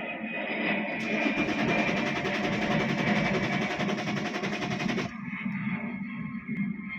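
BMW E60 535d diesel engine cranking on the starter without firing, from about a second in until it stops about five seconds in. A hot crank-no-start: the fuel pump control module (EKPS) gives the fuel pump no power when hot, so the engine will not catch.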